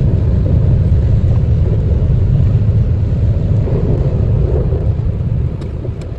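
Steady low rumble of a Sydney Metro Metropolis train running through a tunnel, heard from on board.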